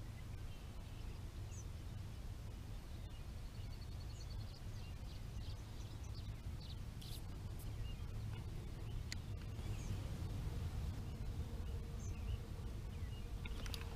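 Outdoor ambience: a steady low rumble with faint, scattered bird chirps over it, and a brief quick trill a few seconds in.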